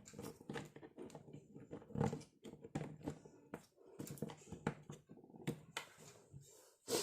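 Irregular clicks, taps and light knocks of drill parts being handled and fitted together by hand, with one louder knock near the end.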